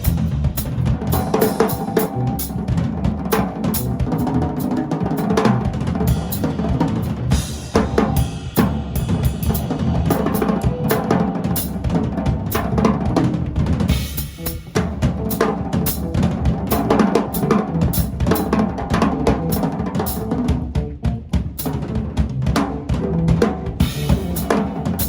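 A live band playing: a drum kit leads with busy snare, bass drum and rimshot hits, over sustained bass and guitar lines, with a brief drop in the playing about halfway through.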